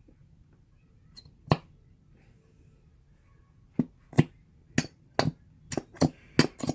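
Sharp knocks of a glue container being tapped and banged to shake out the last thick glue: one knock, then a quicker run of about nine, roughly two a second, near the end.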